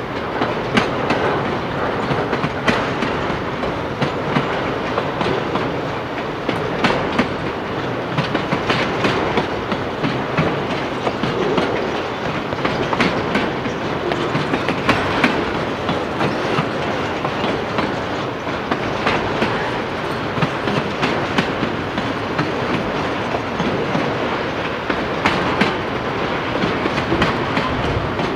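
Freight train of autorack cars rolling past: a steady rumble of steel wheels on rail, with frequent irregular clicks and clacks as the wheels cross rail joints.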